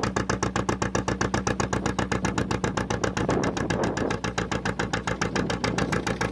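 Fishing boat's diesel engine running with a steady, rapid chugging of about eight beats a second. A rushing noise grows behind it from about three seconds in.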